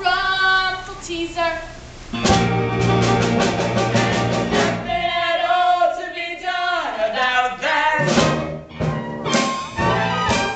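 Musical-theatre song with voices singing over band accompaniment. The fuller accompaniment comes in about two seconds in.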